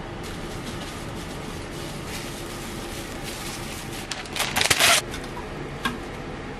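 A sheet of baking paper pulled off its roll and torn against the box's serrated cutting edge: a loud tearing rasp lasting under a second about four seconds in, followed by a single click. Before it there is soft rustling of paper and wrap over a steady background hum.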